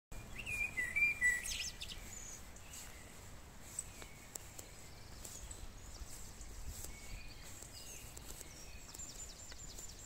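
Birds chirping, loudest in the first two seconds, over a low steady rush of river water pouring over a small rock cascade.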